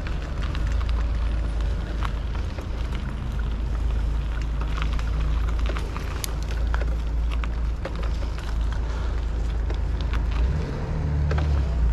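Steady low wind rumble on an action camera's microphone and tyre noise from an e-bike riding over a paved path, with scattered small clicks and rattles.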